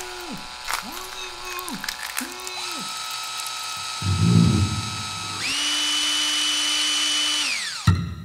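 A small electric power-tool motor revs up and down in three short pulls, like trigger squeezes. About four seconds in comes a low rumbling thud. Then a longer steady high whine winds down and ends with a sharp thump.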